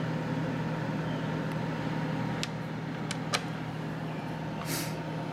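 Steady low mechanical hum with a faint higher tone, broken by a few small sharp clicks near the middle and a short hiss near the end.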